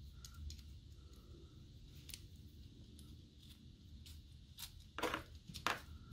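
Faint clicks and handling noises of a small helmet-camera clamp bracket being taken apart with an Allen key, with two louder clicks near the end.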